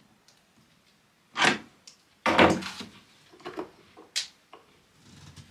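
Knocks and clunks of hands working at battery cables and fittings on a lithium battery sitting on a wooden bench: two louder thuds about a second and a half and two and a quarter seconds in, then a few lighter clicks as a switch on the wall panel is worked.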